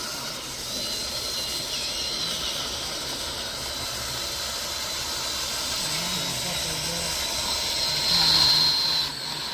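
Heavy construction machinery running steadily, with a thin high-pitched whine over the engine noise that grows louder about eight seconds in, then drops back.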